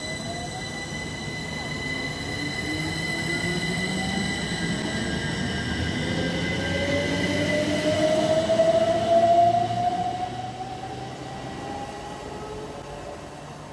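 c2c Class 357 electric multiple unit accelerating, its traction motors whining and rising steadily in pitch over rumbling wheel-on-rail noise. The sound grows louder to a peak about two-thirds of the way through, then fades.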